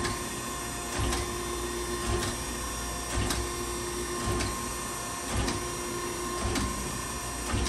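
Okamoto 1632 DX hydraulic surface grinder running its automatic cycle on a spark-out pass at zero downfeed: a steady machine hum from the spindle and hydraulics, with a short knock about once a second.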